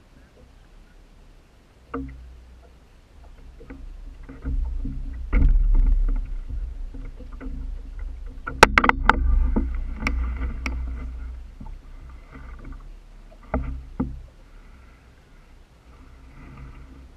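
Water lapping and splashing against a small boat's hull, over a low rumble, with sharp slaps and knocks: one about two seconds in, a dense cluster about halfway through, and a few more near the end.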